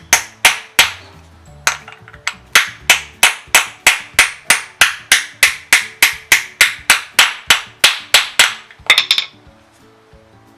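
Hammer striking metal in a steady run of about two dozen sharp blows, roughly three a second, ending in a quick flurry of lighter taps. It is work on the press-fit bearing of a belt tensioner pulley.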